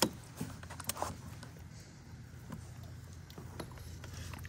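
Quiet handling noise of a bass being held in lake water beside a paddle board for release: a few light taps and soft water sounds over a low steady rumble.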